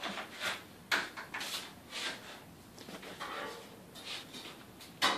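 Footsteps scuffing on a concrete garage floor, about two a second at first, then slower and uneven.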